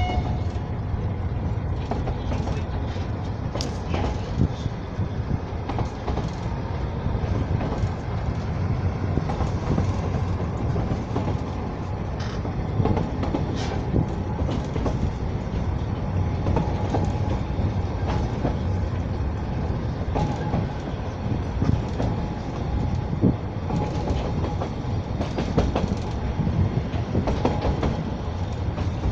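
Narrow-gauge children's railway train running along the track: a steady low rumble of wheels on rail with scattered clicks and knocks.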